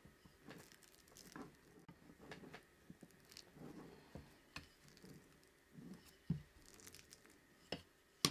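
Faint rolling of a wooden rolling pin back and forth over tart dough under plastic wrap, with soft crinkling of the wrap and scattered light clicks and knocks as the pin rides on metal guide bars.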